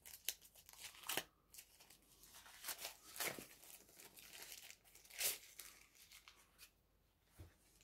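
Thin plastic packaging film crinkling in the hands as a small drone accessory is unwrapped: faint, scattered crackles, with a few louder rustles about 1, 3 and 5 seconds in.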